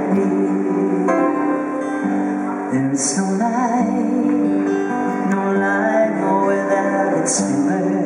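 Live pop ballad on two acoustic guitars, strummed and picked, with a singing voice over them.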